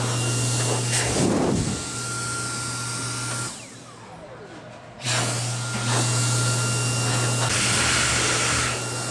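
Dyson hand dryer blowing hard with a steady motor hum. It cuts out about three and a half seconds in, its motor winding down with a falling whine, then starts up again about a second and a half later.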